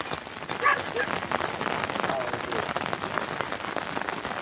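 Steady rain falling, a dense patter of drops striking surfaces. A brief pitched call rises above it less than a second in.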